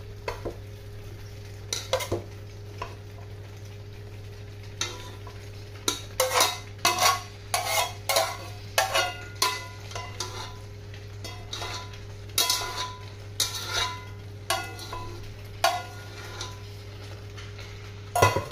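Cooked spaghetti being added to and stirred into a creamy white sauce in a nonstick frying pan with a silicone spatula: irregular scrapes and knocks of the spatula against the pan, busiest through the middle, over a steady low hum.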